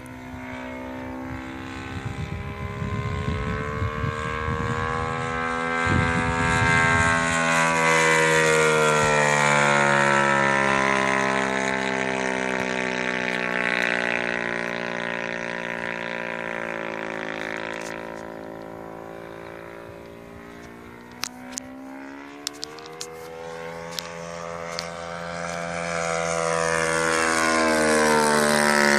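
Radio-controlled P-40 Warhawk model plane flying past overhead, its engine and propeller droning. The pitch and loudness rise and fall as it passes, with a quiet spell about two-thirds through before it comes round again. There is a low rumbling in the first several seconds and a few sharp clicks later on.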